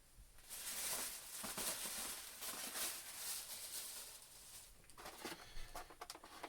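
Plastic and cardboard toy packaging rustling and crinkling as it is handled, for about four seconds, followed by a few light clicks and taps.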